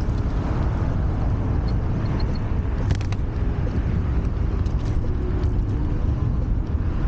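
Steady rushing wind and road noise while riding a Wolf Warrior 11+ electric scooter, a deep rumbling rush with a brief cluster of sharp clicks about three seconds in.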